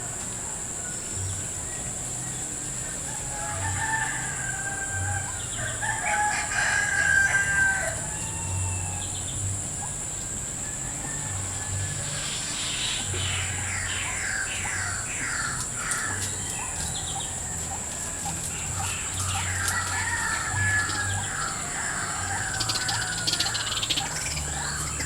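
Loud, fowl-like bird calls in several bouts, with a rapid run of repeated notes, over a steady high-pitched whine.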